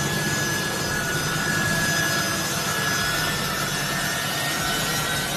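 U.S. Air Force C-17 cargo jet's turbofan engines running as the aircraft taxis: a steady rushing noise with a high turbine whine that drifts slightly lower.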